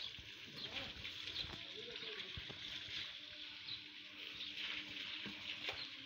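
Water from a garden hose spraying onto a JCB 3CX backhoe loader, a steady hiss and splash.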